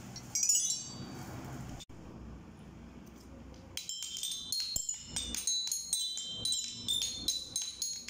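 Metal bars of a toy xylophone struck with a wooden mallet, giving bright ringing notes. A short run of strikes comes about half a second in. From about four seconds a quick, uneven string of strikes follows, about four a second.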